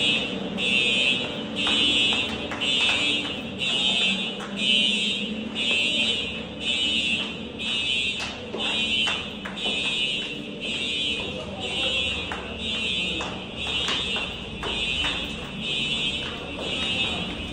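Building fire alarm sounder wailing in steady pulses about once a second, with the stairwell's echo, as an evacuation signal; shoes tap on the concrete stairs beneath it.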